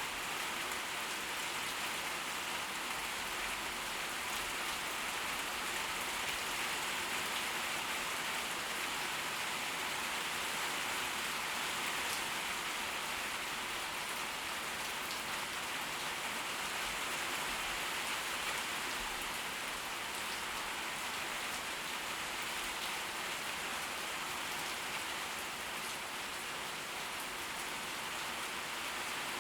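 Steady heavy tropical-storm rain, an even hiss of downpour with scattered close drop hits and no thunder.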